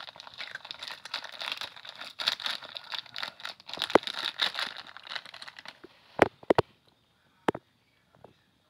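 Plastic snack packet crinkling as a hand handles it, a dense crackle that stops about six seconds in. A few sharp clicks follow near the end.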